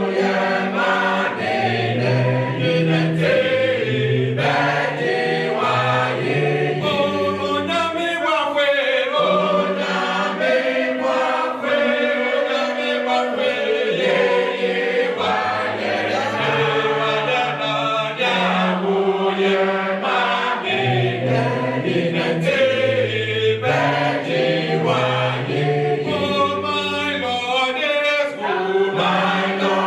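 A choir singing a cappella in several harmonised voice parts, with a moving bass line beneath.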